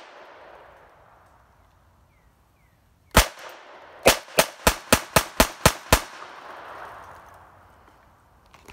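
A compact semi-automatic pistol-style gun fires one shot about three seconds in, then a quick string of eight shots at about four a second. Each shot echoes and the echo dies away slowly.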